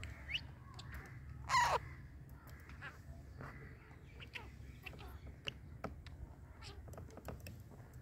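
A young parakeet and a budgerigar calling: one harsh, falling squawk about a second and a half in, with short chirps and clicks scattered through the rest.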